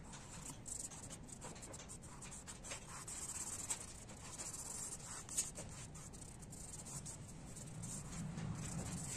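Fingers rubbing and smudging pastel colour on drawing paper: a dry, scratchy scraping made of many short strokes, with two sharper clicks in the middle.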